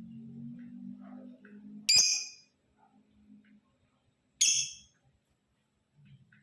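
Male lovebird giving two short, shrill calls, about two and a half seconds apart.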